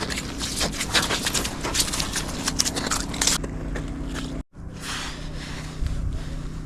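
Footsteps crunching on snow-covered ice, a quick run of crisp steps that stops about three and a half seconds in, over a steady low hum.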